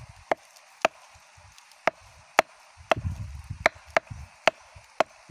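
Sharp wooden knocks of a club beating the flower stalk (manggar) of a sugar palm, about eight blows at an uneven pace. This beating is the step that makes the stalk drip sap for tapping.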